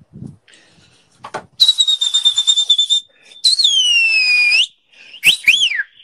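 Loud, high-pitched whistling in three parts. A steady whistle holds for over a second, a second one glides down in pitch and turns up at the end, and quick rising-and-falling chirps come near the end.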